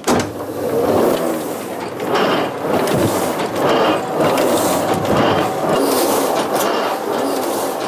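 Letterpress printing press starting up abruptly and running with a rhythmic mechanical clatter, a stroke roughly once a second, as sheets feed through.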